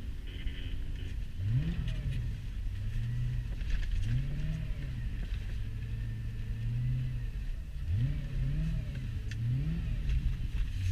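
Straight-piped C4 Corvette V8 heard from inside the cabin, revving up in a series of short sharp rises with steadier running between them, several in quick succession near the end.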